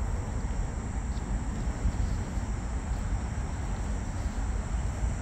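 A steady chorus of night insects trilling in the grass, over a low rumble.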